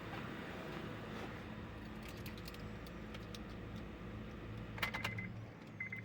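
2008 Honda Accord engine idling steadily with no rattle, running smoothly after its timing gear repair. Near the end come a jingle of keys and clicks, with two short electronic beeps.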